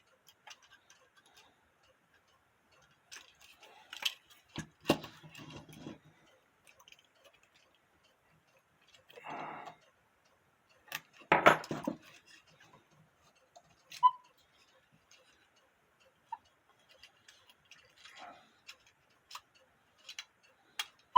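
Small tools and hands working on a cuckoo clock movement, bending the wire linkage of its bellows: irregular clicks, taps and light metallic knocks, with a few louder handling knocks and rustles between quiet stretches.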